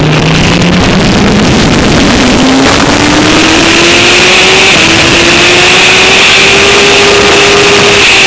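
Suzuki GSX-R1000 sportbike's inline-four engine accelerating hard out of a corner, its pitch climbing steadily with a brief dip at an upshift about halfway. Strong wind rush over the bike runs underneath.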